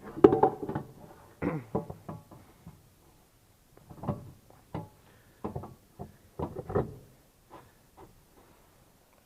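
Irregular knocks and bumps as the new air filter element and its parts are fitted back into a tractor's air cleaner housing, loudest in the first couple of seconds and sparser after.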